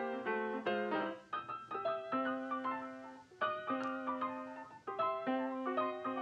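Background piano music: a gentle melody of struck notes and chords, some lower notes held for about a second.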